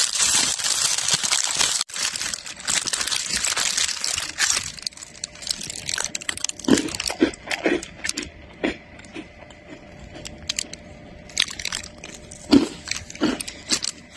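Plastic biscuit packet crinkling for the first four seconds or so, then separate crisp crunches of biscuits being bitten and chewed close by, roughly one every second.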